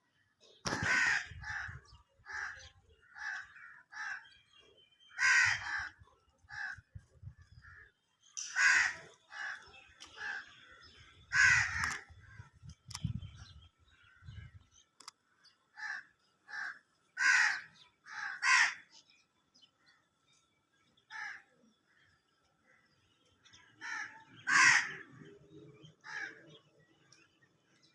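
Birds calling in a series of separate loud calls, one every second or two with short pauses between, and a low rumble under some of the calls.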